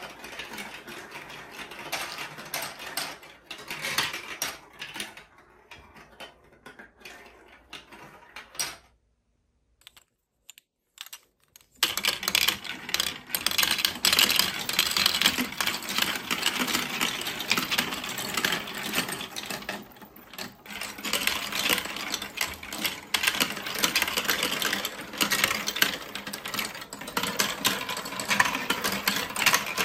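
Marbles rolling and clattering through the plastic tracks and spiral funnels of a block-built marble run, a dense rattle of small clicks. It fades away and drops to silence for about three seconds a third of the way in, then comes back louder as many marbles run at once.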